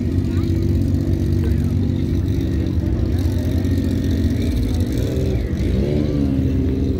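A vehicle engine idling steadily, then revved briefly about five seconds in, its pitch rising and falling back.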